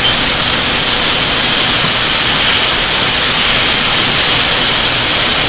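Chicken drumsticks sizzling in hot frying oil: a loud, steady hiss.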